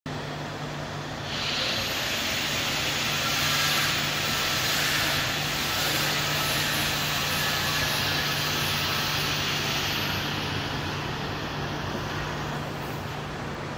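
Fessmann BK 2 electric rack baking oven running: a steady low hum under a loud airy hiss that swells about a second in and dies away near the end.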